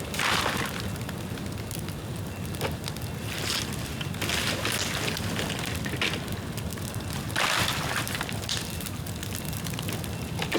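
Bamboo burning in an open bonfire: a steady low rumble of flame with constant crackling and pops, and about five louder surges of hissing as the fire flares.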